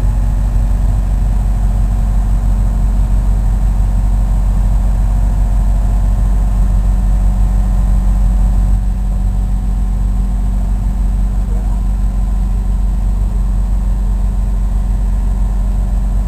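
Military landing craft's engines running steadily at low power, holding the beached boat against the bank. The deep, even engine note drops slightly in level about nine seconds in.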